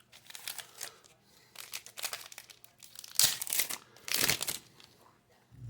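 A trading-card pack wrapper crinkling and tearing open in about four short, noisy bursts. The loudest come a little after three and four seconds in.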